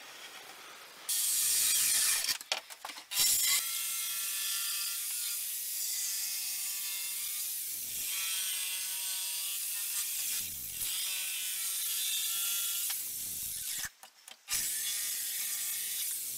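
Power saw running and cutting wood, with a steady rasping drone that starts about a second in and breaks off briefly twice.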